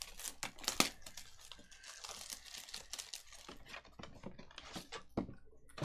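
Trading card packs and cards being handled: a foil pack wrapper crinkling and tearing, with quick clicks and snaps of cards being flipped through.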